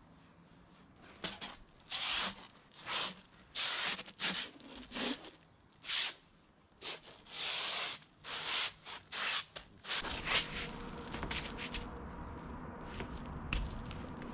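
A run of about a dozen rough rubbing and scraping strokes on roll roofing felt during roof work, each under a second long. About ten seconds in they give way to a steadier low rumble and hiss.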